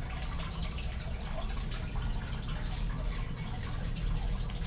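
Aquarium water trickling and dripping, small scattered drips over a low steady hum.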